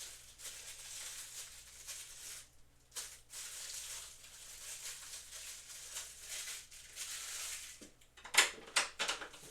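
Rustling and handling of parts while boxing equipment is being put together, with a knock about three seconds in and a quick run of sharp clacks near the end.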